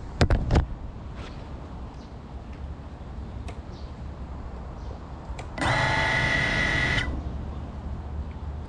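FPV quadcopter crashing onto a pebbled concrete path: two or three sharp impacts right at the start as it tumbles and comes to rest. About five and a half seconds in, a steady high tone sounds for about a second and a half, then cuts off.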